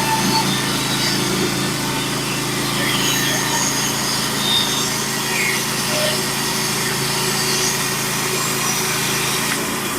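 Norwood HD36v2 portable bandsaw mill's gas engine running steadily under load as the band blade cuts through a pitch pine log.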